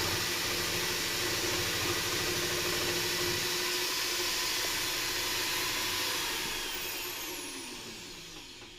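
Sewing machine converted into a jigsaw, driven by a Milwaukee power tool motor, running steadily with its reciprocating blade mechanism, then slowing and dying away with a falling pitch over the last few seconds as the motor spins down.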